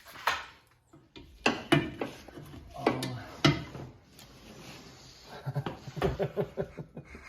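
A string of sharp knocks and clunks, about half a dozen over four seconds, as parts and tools are handled during suspension and steering-rack removal, with a rattling clatter near the end.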